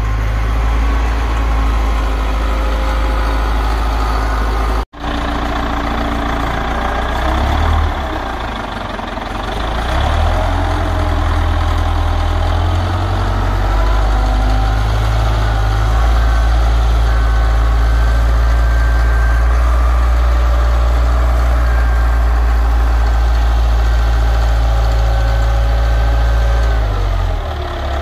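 Wheel loader's diesel engine running loud and low while it digs into and turns a compost pile, its load and revs shifting several times, with a fainter higher whine sliding in pitch above it. The sound cuts out for an instant about five seconds in.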